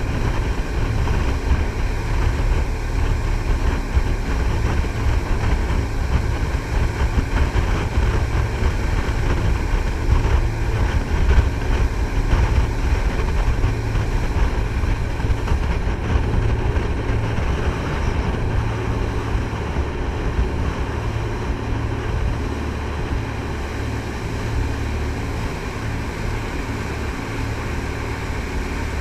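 Triple-diesel jet boat running under way: a steady, loud engine drone mixed with rushing water and wind noise. It eases slightly near the end.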